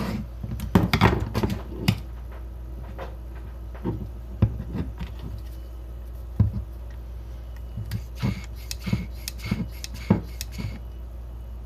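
Hand vacuum pump with gauge being fitted to a VW D-Jetronic MAP sensor and squeezed to draw vacuum on it: irregular plastic clicks and knocks, bunched near the start and again near the end.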